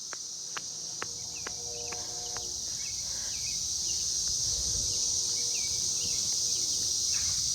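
Steady, high-pitched insect chorus, cricket-like, with short bird chirps over it. A few sharp clicks sound in the first second and a half, and a low rumble underneath grows louder toward the end.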